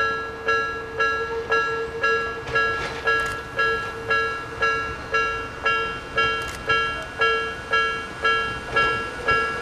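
Japanese level-crossing alarm ringing steadily at about two strikes a second, each strike a bright ding that fades before the next.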